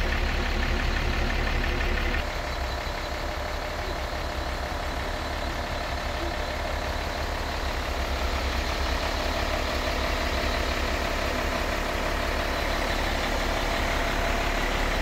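Mercedes-Benz Unimog U2450 L truck's diesel engine idling, a steady low rumble.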